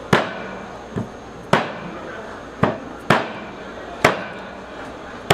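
A long knife knocking sharply against a wooden cutting board as it cuts through a tuna loin, about one knock a second, some louder than others, over market background hum.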